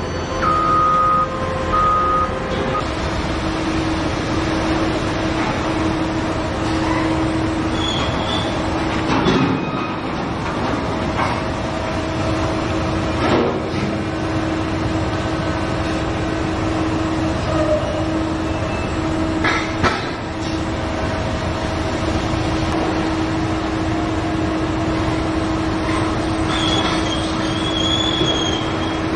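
Heavy mining machinery at work: an electric rope shovel loading rock into a giant dump truck. A steady mechanical drone with a held whining tone runs throughout, with short metallic squeals and a few clanks.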